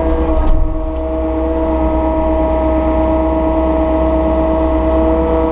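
Diesel engine of a piece of heavy equipment running steadily at constant revs, a steady hum with a low rumble beneath. There is a brief knock about half a second in.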